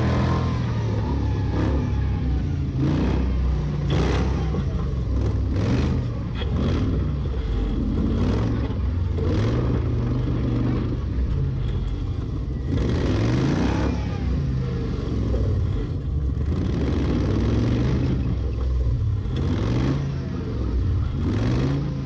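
An off-road vehicle's engine revving up and down repeatedly as it drives slowly over soft sand dunes, with several short knocks from the vehicle along the way.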